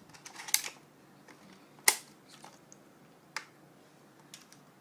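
Handling clicks of a Nerf toy shotgun being loaded, as a foam dart and shell are inserted: a few sharp plastic clicks and snaps, the loudest about two seconds in.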